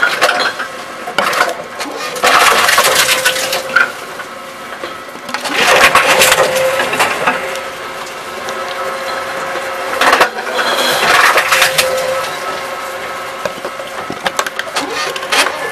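Tomra T-Series reverse vending machine taking in plastic bottles: several bouts of hollow rattling and clattering as bottles tumble and spin on the feed-chute rollers, over a steady motor hum.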